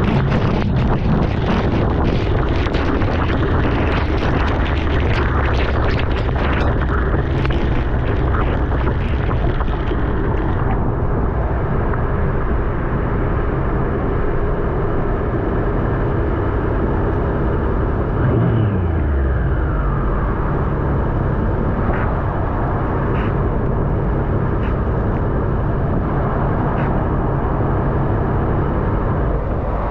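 Sport bike running under way, with steady wind noise over the microphone. For the first ten seconds or so a dense run of sharp ticks sits over it, then the sound thins out. About eighteen seconds in there is one falling whine.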